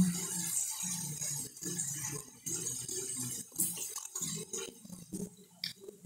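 Close-up eating sounds of someone chewing stewed chicken feet by hand, with a few sharp clicks and light clinks scattered through.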